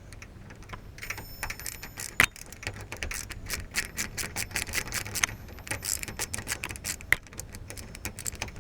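Screwdriver working the screws out of a door lock's latch on the edge of the door, with rapid, irregular metallic clicks and rattles of the lock hardware.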